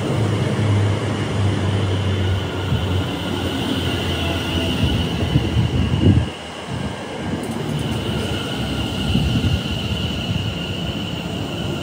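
A train running through a station: a loud, steady rumble and clatter of wheels on rail with a steady high whine, and a brief dip in the noise about halfway through.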